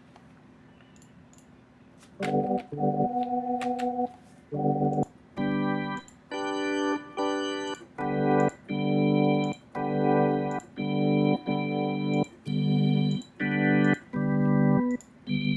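Yamaha Montage M synthesizer organ patch played as a run of short, detached chords, about one to two a second, starting about two seconds in after a near-silent pause.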